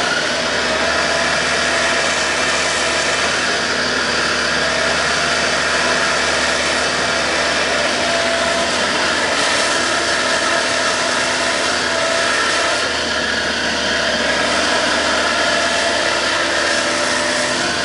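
Link-Belt 160 LX hydraulic excavator's diesel engine running steadily while the machine swings its upper structure and works the boom and bucket.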